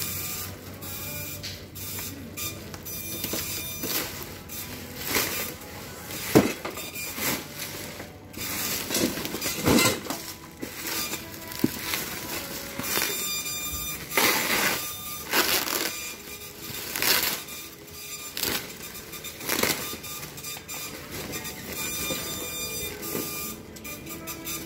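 Plastic packaging rustling and crinkling in irregular bursts as bubble wrap and plastic bags are pulled off a cardboard box.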